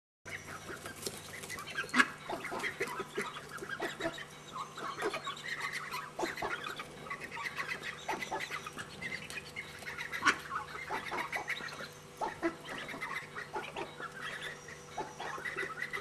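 A small flock of ducks calling with many short, repeated quacks overlapping throughout. A couple of sharp taps stand out, about two seconds and ten seconds in.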